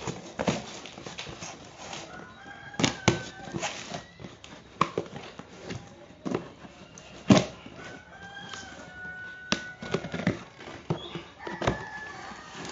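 Scattered knocks and clatter of things being handled, the loudest about halfway through, with short high calls, like bird or chicken calls, in between.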